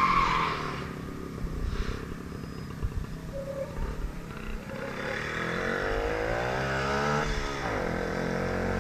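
WSK 125 motorcycle's single-cylinder two-stroke engine revving. Its note falls away and fades at first, then climbs steadily in pitch and grows louder, dips briefly about seven seconds in, and climbs again.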